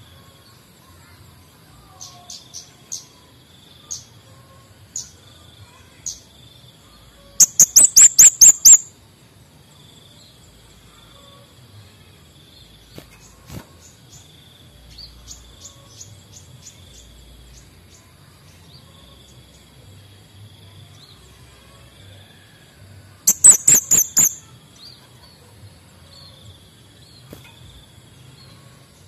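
Male kemade bunga api songbird singing: two loud, rapid runs of sharp, very high notes, one about seven seconds in and another near the end, with scattered single chirps between them.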